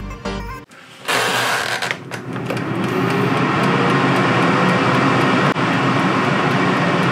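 Air fryer starting up: after a short loud rush about a second in, its fan runs with a steady whoosh, a faint motor tone rising as it spins up. Faint, evenly spaced ticks from its wind-up timer run through it.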